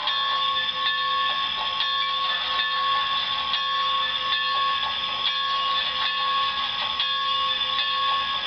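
SoundTraxx heavy-steam sound decoder in an HO-scale Bachmann 2-8-0 steam locomotive model, playing steam-engine sounds through an oversized G-scale speaker while the model runs. It gives a steady hiss with several held ringing tones and light clicks about once a second.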